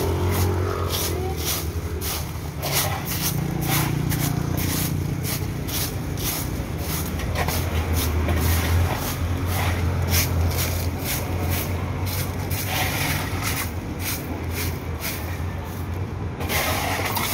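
Stiff stick broom (walis tingting) sweeping dry leaves across pavement: quick scratchy strokes, about two a second, over a steady low rumble.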